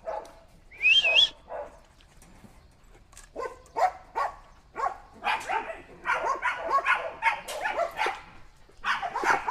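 Dog sounds: a short, high, wavering whine about a second in, then from about three seconds a busy run of quick noisy bursts.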